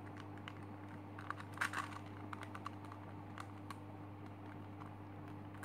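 Plastic pieces of a Super Square One (SSQ-1) twisty puzzle clicking as its layers are turned by hand. Scattered light clicks come with a quick cluster about one and a half seconds in, over a steady low hum.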